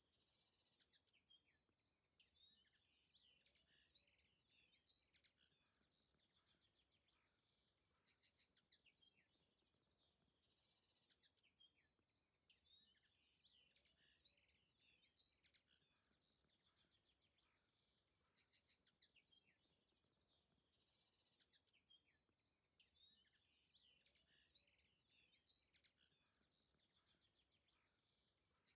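Very faint songbird chirps and trills, coming in clusters that repeat about every ten seconds, like a looped nature ambience.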